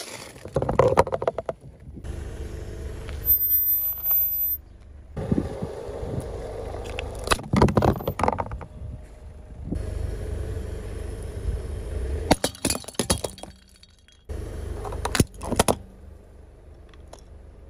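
A car tyre rolls slowly over asphalt, crushing objects in several short takes. There are a few sudden cracks and crunches, and tubes of toothpaste and ketchup burst under the wheel.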